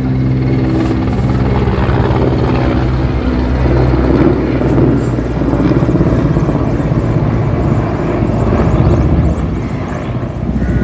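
Mi-17-1V (Mi-8MTV-1) military transport helicopter flying past overhead, its five-bladed main rotor and twin turboshaft engines running loudly. A steady low hum turns into a fast, even rotor chop about three seconds in, easing slightly near the end.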